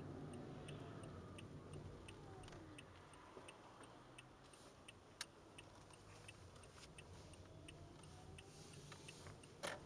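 Faint, regular ticking, about three ticks a second, over a steady low hum and a faint whine that falls and then rises, heard in a 2015 Toyota Prius C. A sharper click comes about five seconds in and another near the end.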